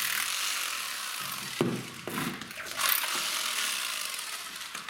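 Power drill with a long masonry bit running against a brick wall, chipping plaster out of the groove around an old embedded electrical wire, with a sharp knock about one and a half seconds in.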